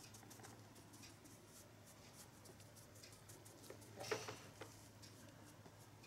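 Faint soft patting and ticking of a brush dabbing liquid silicone onto gauze over a silicone mould, with one louder brief scrape about four seconds in.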